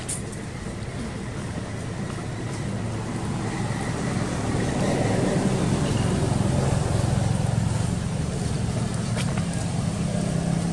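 Low engine rumble of a motor vehicle passing, swelling to its loudest midway and easing off slightly toward the end.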